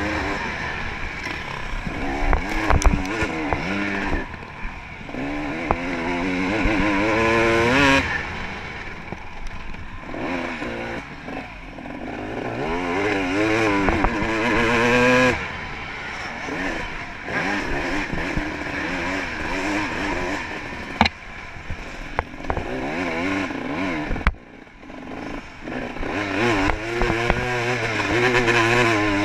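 Off-road dirt bike engine heard from a GoPro worn by the rider, revving up in several long climbs and cutting off sharply between them as the bike accelerates and shuts off along a rough trail. Rattles and knocks from the bike come through.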